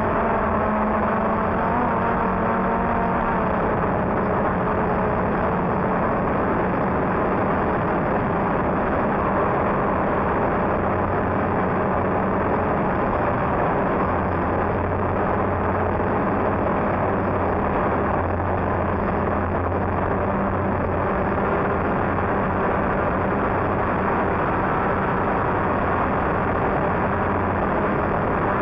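DJI Phantom quadcopter's electric motors and propellers whirring steadily, picked up close by a camera mounted on the drone as it climbs and hovers. The pitch shifts in the first two seconds, then holds steady.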